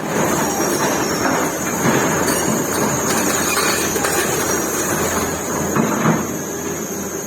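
Excavator demolishing a building: steady diesel machinery noise, with scattered knocks and crunches of breaking rubble and a steady high whine.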